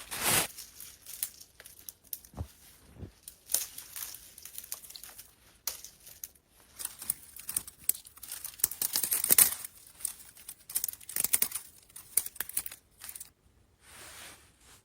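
Irregular crinkling and crunching handling noises made of many short crackles. They are densest in the middle, break off about a second before the end, and are followed by one softer rustle.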